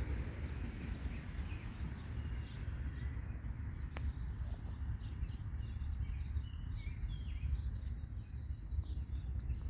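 Small birds chirping in short scattered calls, busiest about six to eight seconds in, over a steady low rumble.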